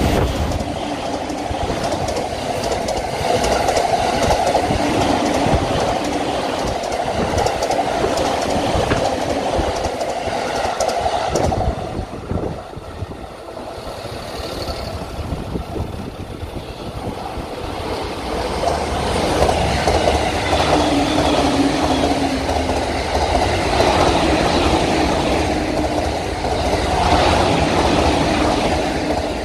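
JR electric commuter train in orange-and-green Shonan livery, with double-deck cars, passing close by at speed, its wheels running hard over the rails. The noise drops about 12 seconds in as the train clears, then builds again from about 18 seconds as another train passes.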